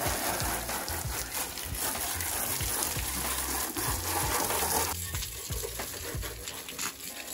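Water spraying onto a motorcycle during its wash: a steady hiss that suddenly grows quieter about five seconds in.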